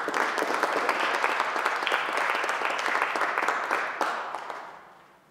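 Audience applauding, a small group clapping steadily and then dying away about a second before the end.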